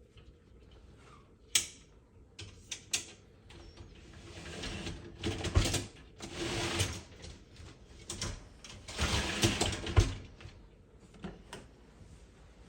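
Dishwasher upper rack being worked back and forth on its side rails: a few sharp clicks as the wheels seat, then three strokes of rolling, rattling slide.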